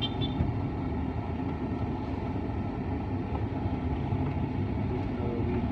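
A motor vehicle driving along a road: steady engine and road rumble with no change in pace.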